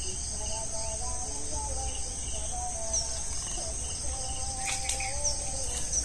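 Outdoor chorus of crickets or other insects shrilling steadily, with a few short bird chirps. Brief splashes and knocks of water near the end.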